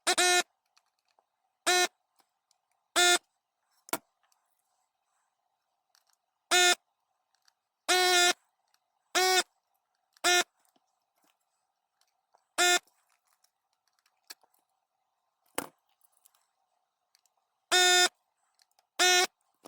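About eleven short electric buzzes at irregular intervals, each a fraction of a second and all at the same pitch, with a few faint clicks between them.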